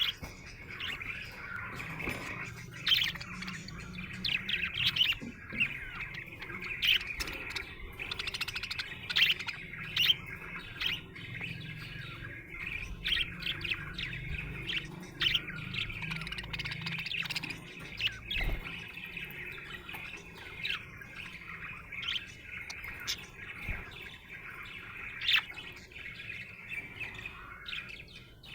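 Budgerigar chattering and warbling without a break, with short, sharp chirps standing out every second or so; the happy chatter of a contented budgie.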